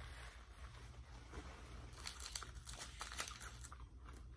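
Faint paper crinkling and rustling: a cluster of short crackles from about two to three and a half seconds in, over a low steady hum.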